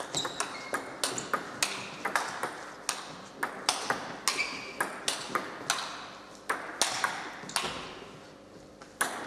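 Table tennis rally: a celluloid ball clicking off rubber bats and the table in quick alternation, with a hall echo after each hit. The hits stop about three-quarters of the way through, and a few more clicks come just before the end.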